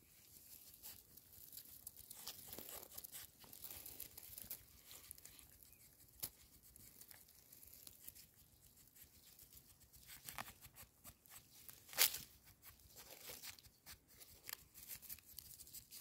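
Faint scratching and crackling of soil, dry grass and leaves as a pangolin digs and roots with its snout and claws at the ground, with a sharper click about twelve seconds in.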